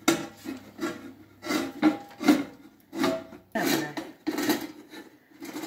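Hand-held can opener cutting round the bottom rim of a metal coffee can: the cutting wheel grinds through the tin in short rasping strokes, about two a second, as the key is turned.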